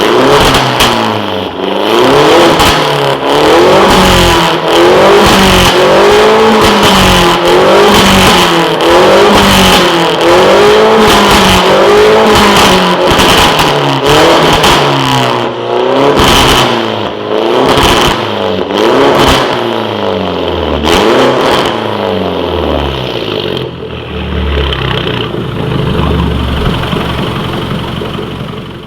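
Mini Cooper R56 JCW's turbocharged 1.6-litre four-cylinder, very loud through a straight-through 63 mm exhaust with no silencer and no catalytic converter, revved again and again, its pitch rising and falling about once a second with sharp cracks between the revs. Near the end it drops back to a lower, steadier run.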